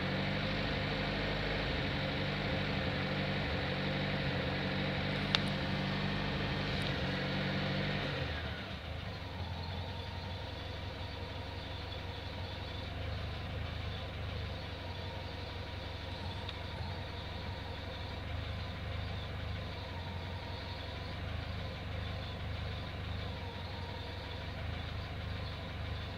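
Car engine idling with its alternator humming under electrical load from the lights. For about the first eight seconds the hum is louder with steady tones, then it drops to a quieter idle with a faint high whine; a single click sounds about five seconds in. The engine is not being revved: it runs like this at idle.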